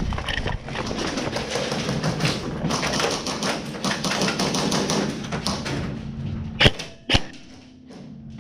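Airsoft players' footsteps and gear clattering as they move, a dense run of knocks and taps. About seven seconds in come two loud sharp cracks half a second apart, and then it goes quieter.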